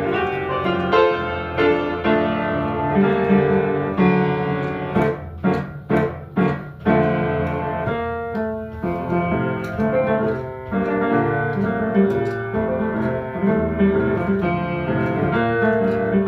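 Piano music: chords and melody played continuously, with a run of sharp, clipped chords about five to seven seconds in.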